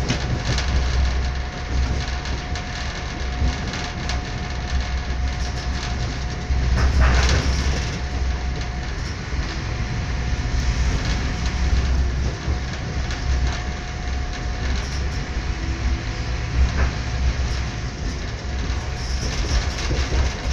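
Moving train heard from inside the carriage: a steady rolling rumble with a faint steady whine above it, swelling louder for a moment about seven seconds in.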